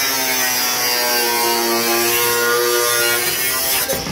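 Angle grinder with a cutoff wheel slicing through sheet steel, its whine sagging slowly in pitch as the motor works under load. Near the end the cut finishes and the sound drops off.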